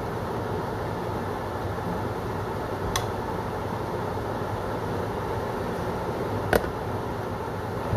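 Strips of steak sizzling steadily in a hot frying pan, with a wooden spatula knocking against the pan twice, the second knock louder.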